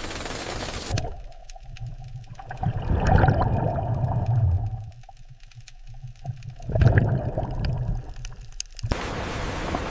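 Muffled underwater rumbling and gurgling with faint clicks, swelling twice. It is framed by a loud steady rushing hiss that cuts off about a second in and comes back abruptly near the end.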